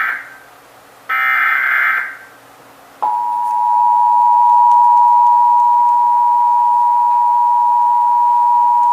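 Emergency Alert System header: the end of one SAME data burst and then one more full burst of about a second, followed about three seconds in by the EAS two-tone attention signal, which starts abruptly and holds steady. These are the coded header and the alert tone that open a Required Monthly Test.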